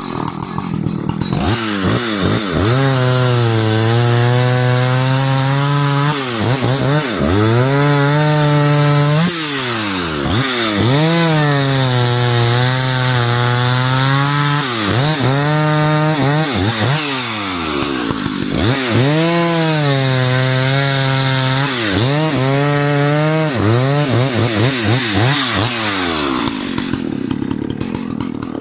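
Husqvarna 285 CD two-stroke chainsaw bucking a log at full throttle. Its engine note sags several times as the chain bites into the wood and climbs back between passes, with the old saw running strong. Near the end it drops back toward idle.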